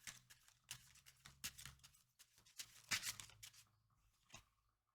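Tarot cards being shuffled and handled: a run of quick, faint rustles and taps of card stock for about three and a half seconds, then a single tap a little before the end.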